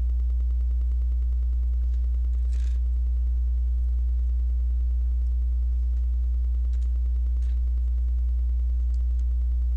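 Steady low electrical hum, with a few faint clicks of plastic Lego pieces being handled and fitted, the clearest about two and a half seconds in.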